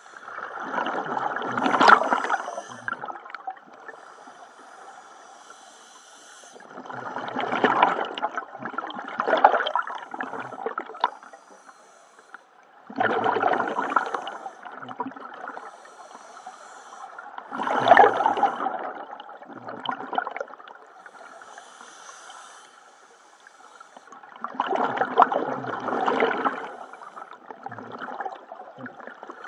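Scuba diver breathing through a regulator underwater: a bubbling gurgle of exhaled air about every five to six seconds, five times, with quieter hissing between the breaths.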